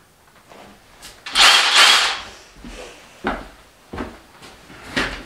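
A loud hiss lasting about a second, swelling twice, followed by a few footfalls as a child walks up in rubber boots.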